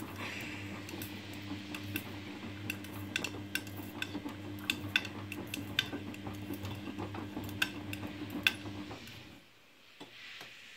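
Front-loading washing machine tumbling a wash of jackets and jeans in sudsy water: a steady motor hum with many sharp clinks of the clothes' zips and buttons knocking against the drum and door glass. The hum stops about nine seconds in as the drum pauses between turns.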